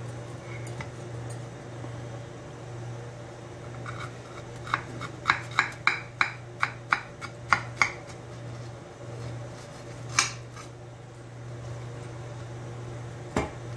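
Kitchen knife cutting through crisp toast and clicking against a ceramic plate. A quick run of about ten sharp clicks comes roughly three a second, starting about five seconds in, then two single clicks follow later.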